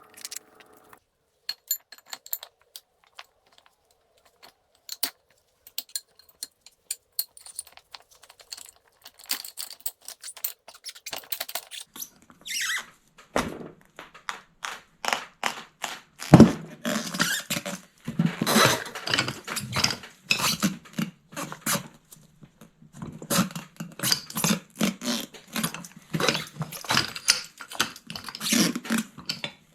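Harbor Freight mini tire changer being worked by hand to break a snowblower tire's bead, with metal clinking and rattling. Scattered clicks at first, then dense runs of rattling and clanking with one heavy thunk about 16 seconds in.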